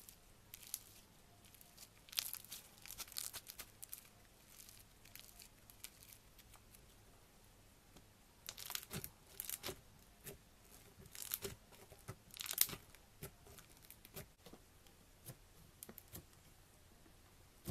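Fluffy slime stretched and squished by hand, crackling with clusters of tiny pops and tearing sounds as it pulls apart. Near the end it gives way to quieter pressing of a softer slime.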